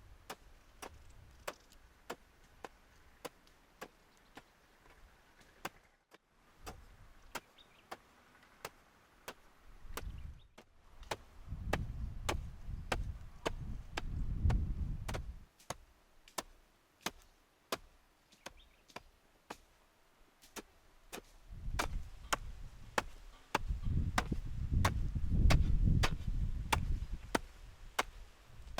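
Steady chopping, about two sharp strokes a second, typical of a knife or cleaver on a cutting board, with stretches of low rumble.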